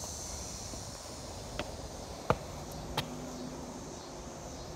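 Steady high-pitched chirring of summer insects in the trees. Three short sharp clicks come about a second and a half, two and three seconds in; the middle one is the loudest.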